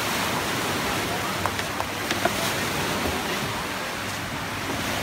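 Steady wash of sea surf with wind, and a few faint clicks in the middle.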